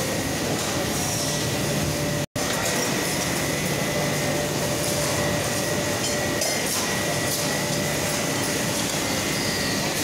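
Steady factory-floor machinery noise on a fridge/AC compressor assembly line, an even hum with a constant high whine running through it. It is broken by a split-second gap a little over two seconds in.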